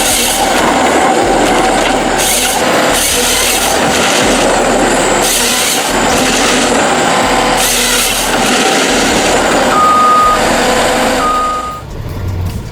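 Heavy machinery working under load, with a steady engine tone and a hissing, grinding surge every couple of seconds. Two short beeps of one pitch sound near the end, and the sound cuts away shortly after.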